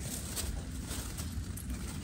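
Wind rumbling on the microphone, with faint rustles from leafy plants being brushed and handled in a vegetable garden.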